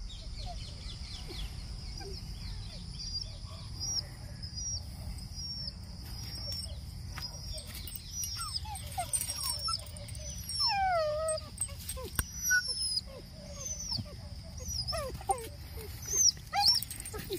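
Dogs scuffling, with a run of high, falling whines and yelps starting about eight seconds in and loudest near the end. A steady high chirping runs underneath.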